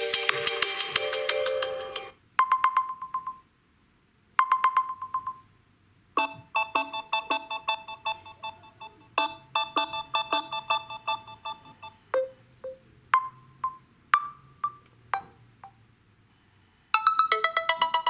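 Samsung Galaxy A71 stock ringtones playing one after another: short bright electronic melodies separated by brief pauses. One tune ends about 2 s in, a short phrase plays twice, a quick rhythmic tune follows, then a few scattered notes, and a new tune starts near the end.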